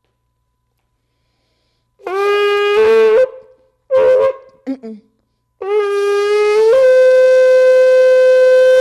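A shofar being blown, starting about two seconds in. A short blast that steps up from a lower note comes first, then a couple of brief blasts, then a long blast that steps up to a higher note and holds it steadily.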